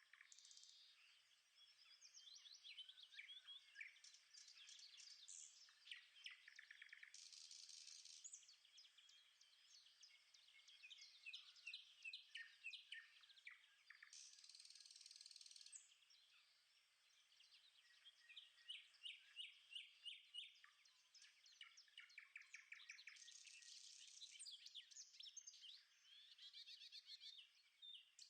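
Faint chorus of several birds chirping and singing at once, with quick repeated chirps and trills overlapping, and a few short high hissing buzzes mixed in.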